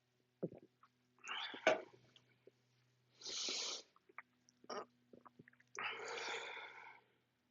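Stifled burps let out as three breathy puffs of air, with small mouth clicks between them. The first puff has a sharp snap, the second is a short hiss, and the last is longer and throatier.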